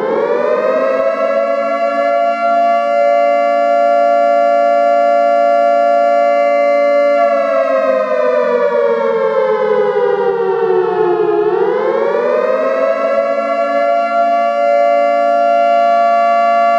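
Civil defense siren sounding a nuclear attack warning, a wailing chord of several tones. It climbs to full pitch in the first second and holds steady. About seven seconds in it sags slowly in pitch, then winds back up just after eleven seconds and holds steady again.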